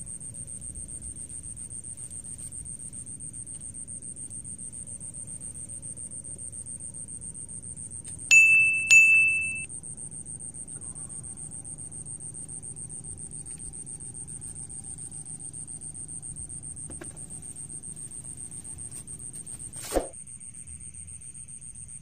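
Fishing rod bite bell rung twice in quick succession about eight seconds in, a loud high ring dying away within a second or so, over a steady high-pitched whine. There is a single sharp knock near the end.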